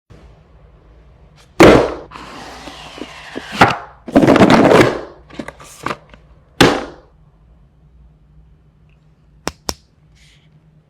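Phone packaging being handled and opened: several sharp knocks and snaps, with bursts of rustling between them, then two small clicks near the end.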